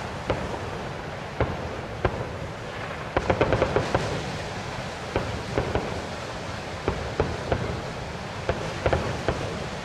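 New Year's Eve aerial fireworks going off: sharp bangs scattered every second or so, with a rapid crackling run of reports about three seconds in.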